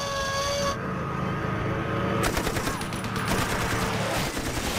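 Rapid anti-aircraft machine-gun fire in a fast, continuous rattle, starting about two seconds in, over a low steady drone. Before the firing, a steady pitched tone cuts off about a second in.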